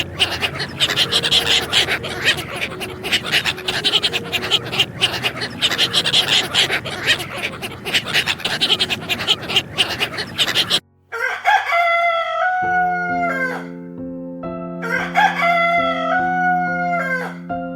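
A flock of chickens clucking in a dense, crackly din. After a brief break, a rooster crows twice, each crow long and falling in pitch at the end, over background music.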